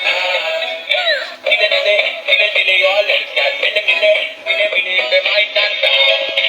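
A dancing apple toy's small speaker playing an electronic song with a high-pitched synthetic singing voice. The sound is thin, with no bass.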